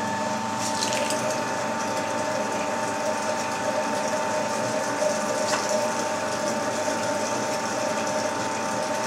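Electric meat grinder running steadily with an even motor whine as beef mince is fed through it a second time and pressed out through a fine 3 mm plate.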